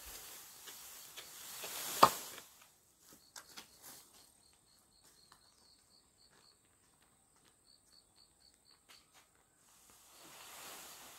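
Outdoor ambience with insects: a steady high whine and a short chirp repeated about four times a second through the middle. A rushing noise at the start ends in a sharp knock about two seconds in, and the rushing noise comes back near the end.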